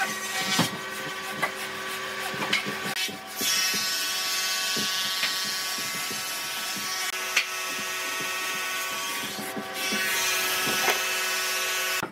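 A wooden frame saw cutting by hand across the post of a tree stump, its strokes rasping through the wood with uneven clicks, over a steady humming tone.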